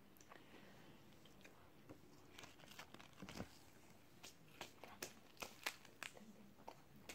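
A person eating veggie buffalo chicken nuggets: faint chewing with scattered mouth clicks and crackles, and one duller thump about three and a half seconds in.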